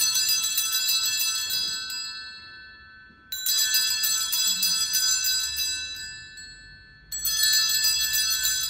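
Altar bells (sanctus bells) rung at the elevation during the consecration, struck three times about three and a half seconds apart. Each ring is a bright jangle of several small bells that dies away before the next.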